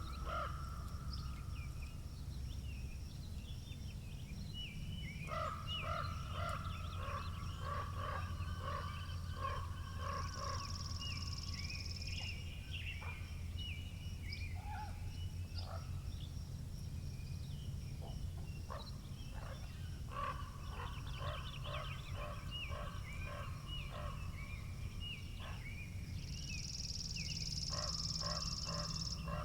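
Spring birds chirping and calling over a steady low wind rumble. One bird gives runs of repeated harsh calls at the start, about five to ten seconds in, and again about twenty seconds in.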